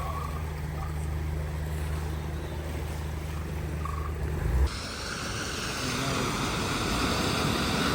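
A vehicle engine runs with a steady low hum and stops suddenly about four and a half seconds in. A rushing noise of moving water follows and grows slightly louder.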